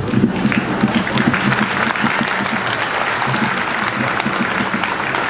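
A large audience applauding, breaking out right at the start and continuing as steady, dense clapping.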